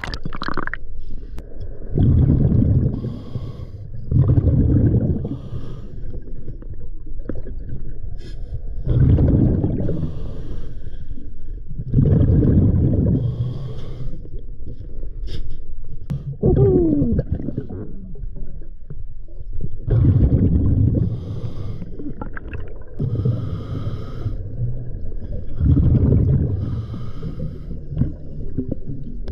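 Scuba diver breathing through a regulator, heard underwater: loud bubbling exhalations lasting about a second each come every few seconds, with quieter hissing inhalations between them.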